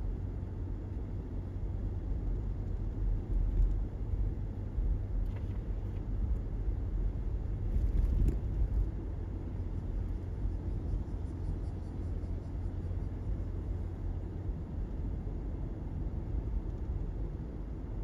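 Car driving at steady road speed, heard from inside the cabin: a low, even rumble of tyres and engine, swelling slightly a couple of times.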